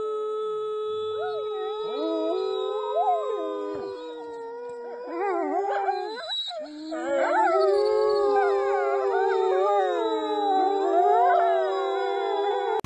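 A woman and a pack of wolves howling together. One long steady note runs underneath, and from about two seconds in several wolf howls glide up and down over it and over one another in a chorus.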